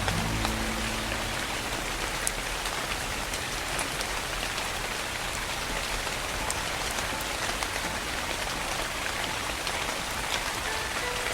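Steady soft rain falling on a surface, an even hiss with scattered sharp drop ticks. A few low music notes fade out in the first second or so.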